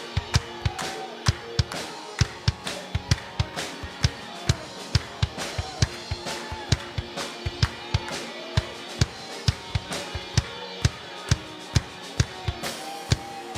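Live praise band music: a drum kit plays a fast, steady beat of kick and snare hits, about three to four a second, over sustained held chords.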